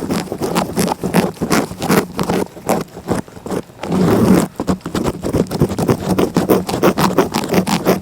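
A cat licking close up: quick rasping tongue strokes, several a second, with a longer, louder stretch about four seconds in.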